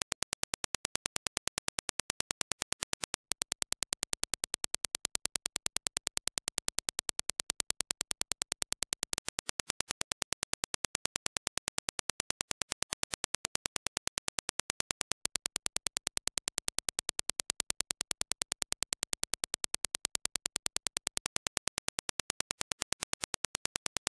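Dirac impulse test signal: a rapid, even train of sharp clicks, many each second. The level steps slightly up and down about every six seconds.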